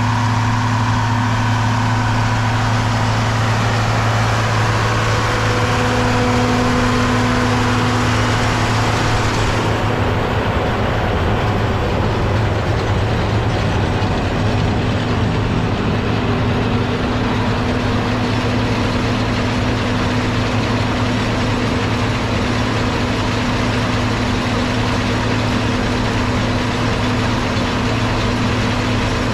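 John Deere 4230 tractor's six-cylinder diesel engine running steadily, pulling a round baler in the field; the sound turns duller about ten seconds in.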